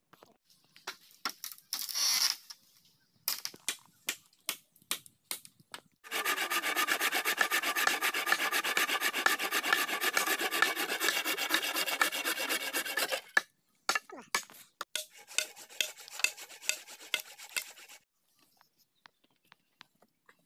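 Hand saw cutting through a green bamboo culm: a steady run of fast rasping strokes lasting about seven seconds in the middle. It is preceded and followed by scattered sharp clicks and crackles.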